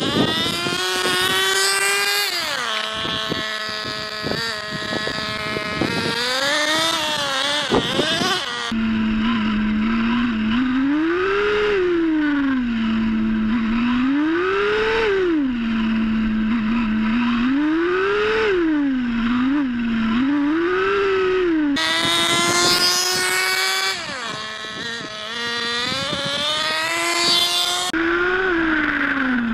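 Small nitro glow engine of a 1/16 scale RC car revving up and down as it drives, its pitch rising and falling over and over. Heard first from the roadside, then close up from on board the car from about nine seconds in, where the revs climb and drop back about every three to four seconds.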